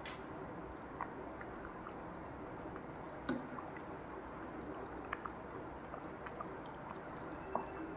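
Thick spiced duck stew simmering and bubbling in a wok pan, with small pops throughout, while a spatula stirs through the sauce. A few sharper clicks stand out, about a second in, a little past three seconds, and near the end.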